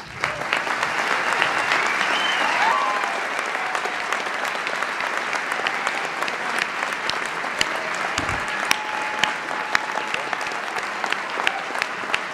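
A large audience applauding steadily: a dense, even patter of many hands clapping.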